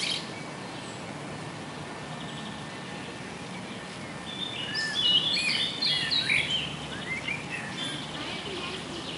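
Songbird singing in a garden: a quick phrase of high chirping notes about five seconds in, followed by a few scattered chirps, over a steady low background noise.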